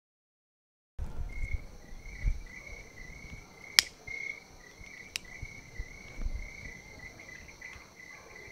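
Crickets chirping steadily, beginning about a second in after silence. Near the middle a sharp click sounds as a cigarette lighter is struck, and a fainter click follows a little over a second later.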